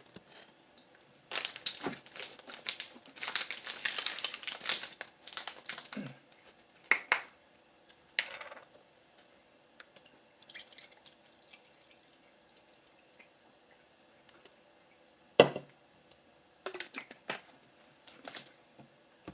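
Plastic juice bottle being handled, opened, poured from and capped: several seconds of plastic crinkling, a few clicks, a faint pour of juice into a glass, then a sharp knock about three-quarters through followed by a few light clicks.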